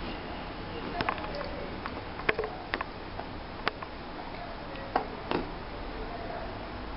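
Chunky wooden jigsaw puzzle pieces knocking and clicking as they are pushed and fitted together: about six short, sharp taps spread out over a steady background hiss.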